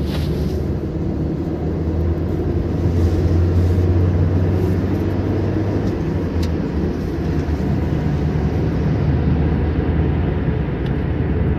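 Steady low drone of engine and road noise heard inside the cabin of a Maruti Suzuki Dzire petrol sedan under way, growing slightly louder about three seconds in.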